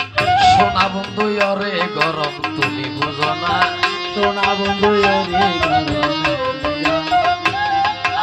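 Instrumental accompaniment of Bengali kobi gaan folk music: tabla and other drums beating a quick, steady rhythm under a bending, wavering melody line.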